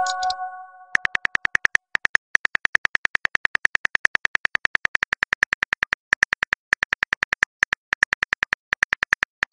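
Smartphone on-screen keyboard clicks: a fast run of short ticks, about seven or eight a second, broken by a few brief pauses as a text reply is typed. In the first second a message-alert chime of several tones fades out.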